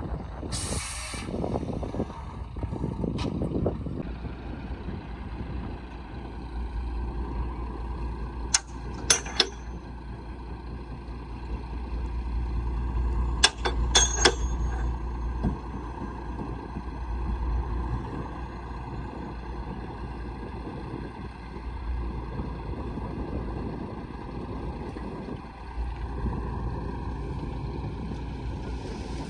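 Heavy earthmoving machinery, dump trucks and a bulldozer, with engines running steadily. There is a short hiss about a second in and a few sharp metallic clanks around the middle.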